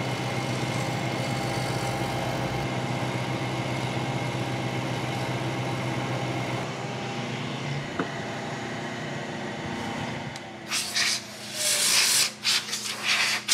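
Vertical milling machine running, its end mill cutting a bronze crank arm with a steady hum. About ten seconds in the cut ends and the spindle note falls, followed by scratchy strokes of a brush sweeping away the chips.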